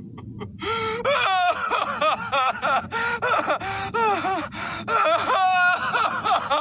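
A cartoon character crying: a few short gasping sobs, then from under a second in, loud wailing sobs whose pitch rises and falls, broken into many short cries.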